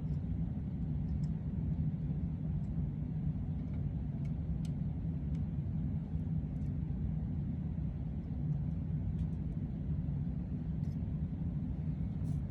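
Steady low rumble with a few faint clicks, cutting off suddenly at the end.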